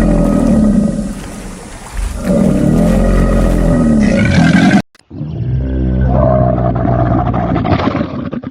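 A large animal's deep, drawn-out roars: three long calls with short breaks between them, the second stopping abruptly.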